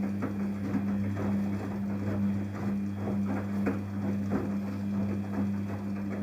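Daewoo DWD-FT1013 washing machine running a synthetic 40°C air-bubble wash: a steady low hum with irregular splashing and clicking of water and laundry.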